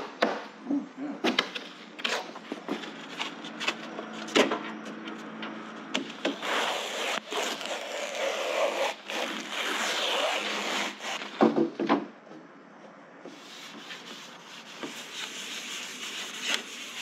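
Gloved hand rubbing a rag over a cured fiberglass panel, wiping it down with styrene, with scattered knocks from handling the panels in the first few seconds. The rubbing is densest in the middle, then it quietens.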